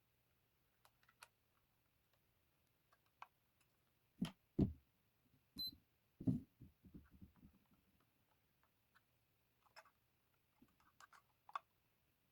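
Scattered light clicks and taps from handling the boat and its packaging, with a few soft knocks about four to six seconds in.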